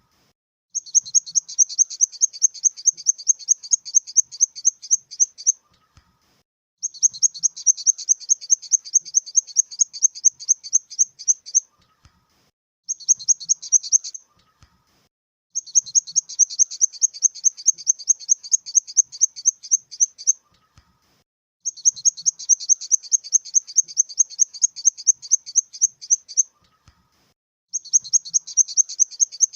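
Grasshopper stridulation sound effect: high-pitched trains of rapid, evenly spaced chirping pulses, each lasting about five seconds and separated by roughly a second of silence, with one shorter burst midway.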